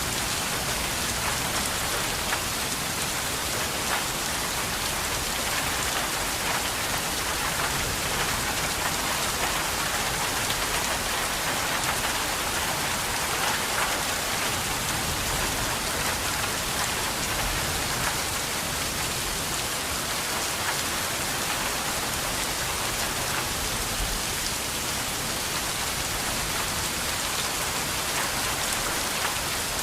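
Steady rain falling on a surface, an even hiss of many fine drops with no let-up.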